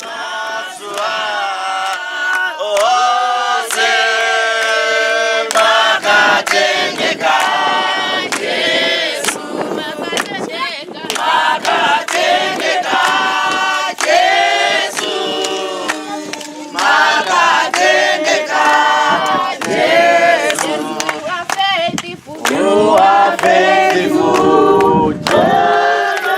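A group of men and women singing together, in phrases a few seconds long with short breaks between them: a gathering singing a praise song.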